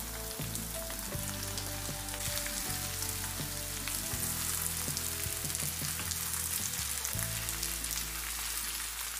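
Raw potato cubes tipped into a hot frying pan of onions fried in coconut oil, sizzling steadily.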